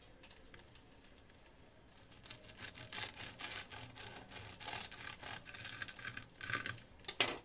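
A knife sawing through a crisp fried brik-pastry bourek roll on a wooden board: a run of dry crackling crunches that starts about two seconds in, with a sharper click near the end.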